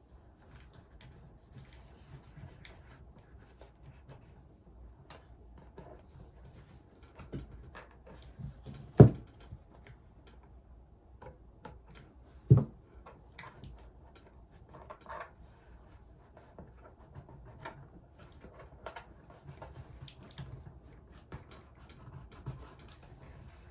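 Hands handling gift-basket materials at a table: scattered small clicks and rustles, with two sharp knocks a few seconds apart near the middle.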